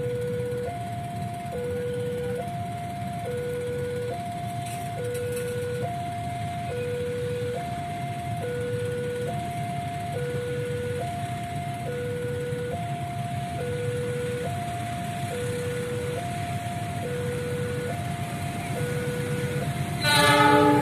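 Railway level-crossing warning alarm sounding two alternating tones, low and high, switching about every two-thirds of a second, over the low rumble of a passing diesel train. Near the end a diesel locomotive's horn blows loudly.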